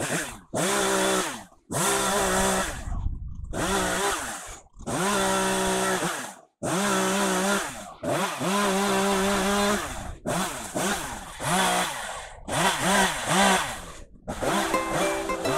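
Two-stroke chainsaw revved in repeated bursts while cutting up a fallen tree limb: each burst climbs to full speed, holds for about a second and drops back, with abrupt silences between bursts.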